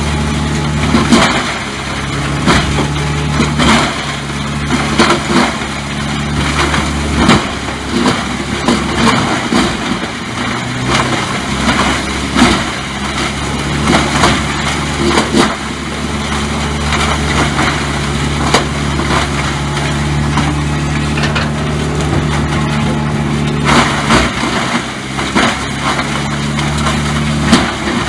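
Engine of a heavy tree-cutting machine running steadily, its note shifting a few times, with frequent sharp cracks and knocks of wood being broken up.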